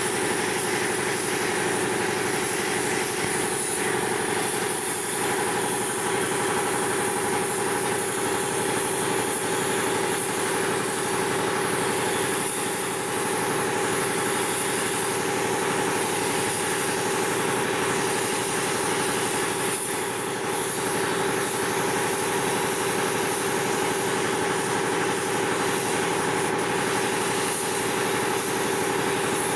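Continuous hiss of a gravity-feed paint spray gun atomising white paint with compressed air, over a steady machine hum.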